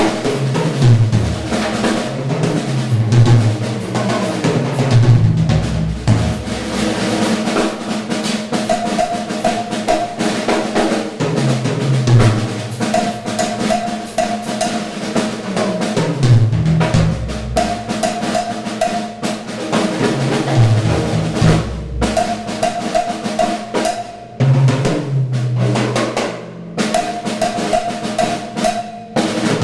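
Drum kit played solo: fast snare rolls, rimshots and bass drum, with fills running down the toms that come back every few seconds.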